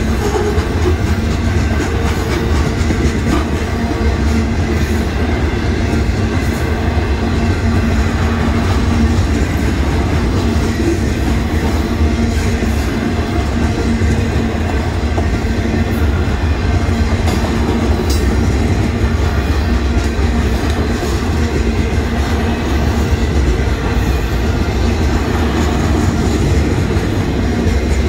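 A Union Pacific freight train's boxcars rolling past close by: a loud, steady rumble and clatter of steel wheels on the rails.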